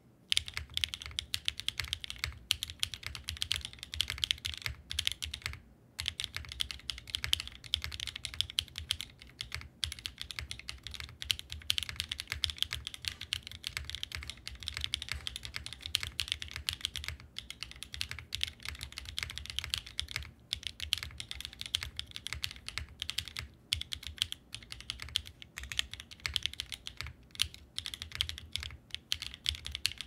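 Fast, continuous typing on an EE-AT mechanical keyboard fitted with Alexotos Edition Obscura switches and GMK Oblivion Git keycaps: a dense stream of keystroke clacks, with a brief pause about six seconds in.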